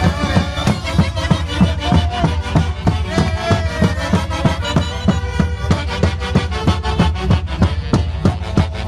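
Traditional Andean Santiago music played by a band: a melody line over a steady, fast percussive beat with heavy bass.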